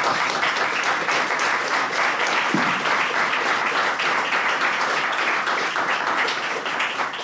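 Audience applauding after a talk: steady, dense clapping from many hands that sets in all at once and starts to fade near the end.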